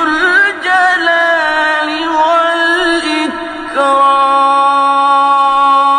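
Male reciter chanting the Quran in the melodic mujawwad style. An ornamented phrase with pitch turns gives way, about two thirds in, to one long held note.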